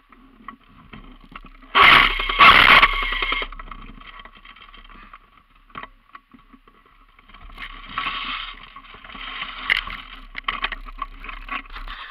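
Scraping and rubbing handling noise on a body-worn camera's microphone as it moves, with two loud brushing bursts about two seconds in. From about halfway on come many small clicks and crackles.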